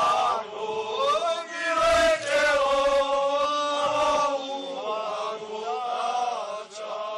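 A group of men singing a Slovak folk song unaccompanied, in unison, with long held notes.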